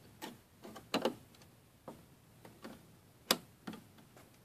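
Irregular light clicks and knocks of a DDR3 RAM stick being handled and pushed into a motherboard memory slot, the sharpest click about three seconds in.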